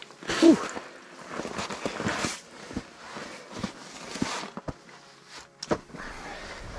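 Rustling of clothing and gear being handled, with scattered light knocks and clicks and footsteps on snow, and a short vocal sound about half a second in that is the loudest moment.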